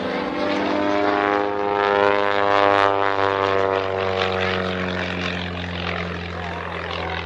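Pitts Special aerobatic biplane's piston engine and propeller running in flight. Its pitch climbs slightly and is loudest about two and a half seconds in, then falls gradually as the aircraft moves away.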